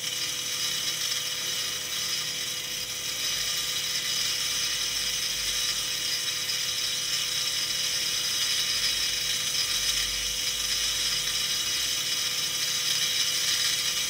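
Small electric drill running at raised speed, its 3 mm bit grinding a hole into a water-wetted ruby ball. A steady whir with a high gritty hiss and a constant thin hum.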